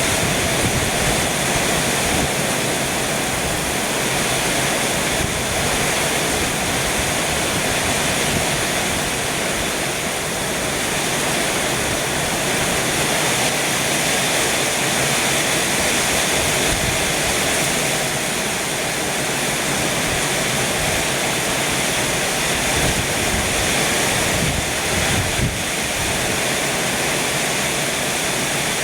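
Heavy rain pouring with strong wind, a loud, dense, steady hiss of water. There is a brief low thump near the end.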